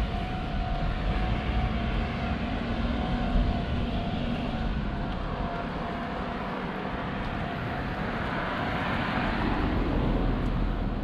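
Road traffic beside the footpath: a steady wash of noise with low rumble, easing off in the middle and swelling again as a vehicle passes about nine seconds in.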